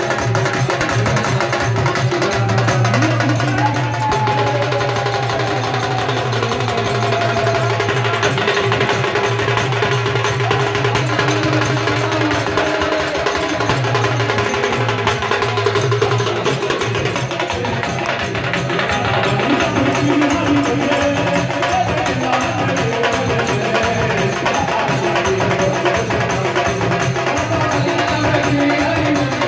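Kirtan devotional music: a harmonium's sustained chords over a dholak drum beaten in a fast, steady rhythm, with sharp hand-percussion strikes on every beat.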